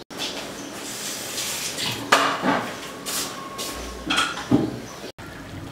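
Covered steel pan of tomato and soybean pickle cooking on a gas stove: a steady hiss with several sharp metal clinks and knocks, the loudest about two seconds in and two more near the end.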